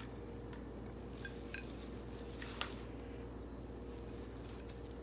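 Faint soft squishing and a few light clicks as dressed shredded mango salad is lifted by gloved hand from a glass bowl onto a plate, over a steady low hum.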